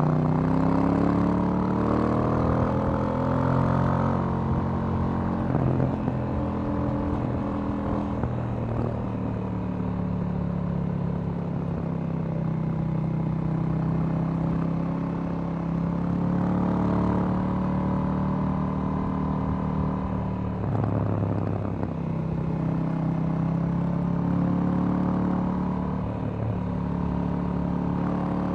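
A 2018 KTM 790 Duke's parallel-twin engine through its stock exhaust, under way. It climbs through the revs in the first few seconds, then runs on at varying throttle, with several brief drops in revs each followed by a new climb.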